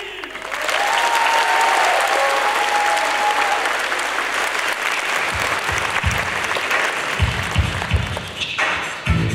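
Hall audience applauding at the end of a song, with a steady held tone over the clapping in the first few seconds; music starts again near the end.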